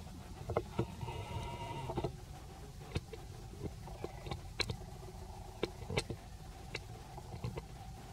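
A young macaque gives a short, steady, bleating cry about a second in, over a low outdoor rumble and scattered small clicks.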